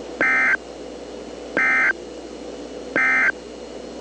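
Emergency Alert System end-of-message (EOM) SAME data bursts: three identical short, raspy digital bursts about 1.4 seconds apart, each a rapid two-tone warble, marking the end of the alert. They sound over a steady background hiss.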